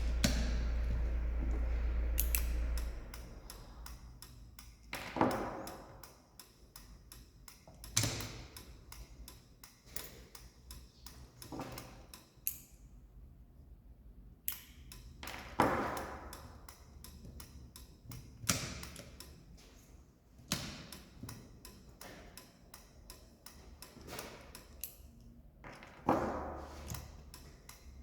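Automotive flasher relay clicking steadily on and off as it blinks the turn signal or hazard lamps. A low hum runs through the first three seconds, and several louder knocks with a short ring are spread across the clicking.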